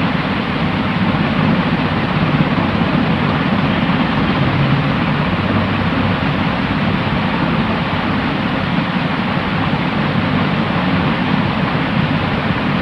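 Steady, unchanging white noise: an even, dull hiss with a low rush and no high treble.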